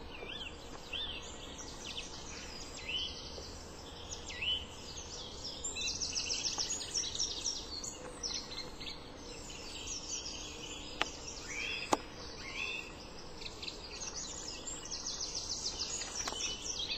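Small songbirds chirping and singing over a steady background hiss, with rapid trills around the middle and again near the end. Two sharp clicks about a second apart come a little past the middle.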